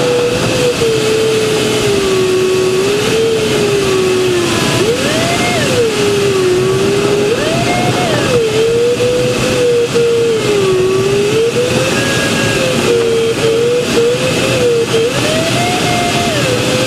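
A glider's audio variometer sounds one continuous tone that slides up and down in pitch every few seconds as the climb or sink rate changes. Under it runs a steady rush of airflow noise in the cockpit.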